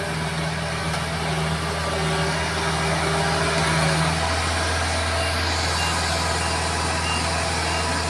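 Tracked rice combine harvester running under load, its diesel engine and threshing machinery making a steady drone. A higher hum in it drops out about halfway through and the noise grows a little fuller.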